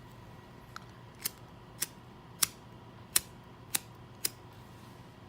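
Butane pipe lighter clicking, seven sharp clicks about half a second apart, as it is worked repeatedly while its fuel flow is being set.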